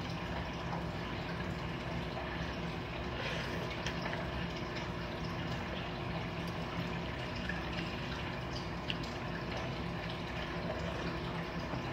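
Steady low hiss and hum of room noise, with a few faint clicks of a metal spoon and chopsticks against the bowl during quiet eating of noodle soup.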